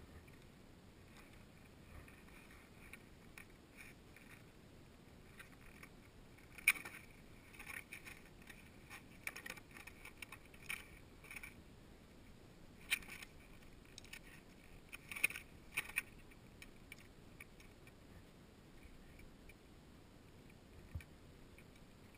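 Faint scrapes and clicks of skis, boots and poles on snow and rock as a skier edges down into a steep rocky chute, coming in a cluster of short scuffs through the middle.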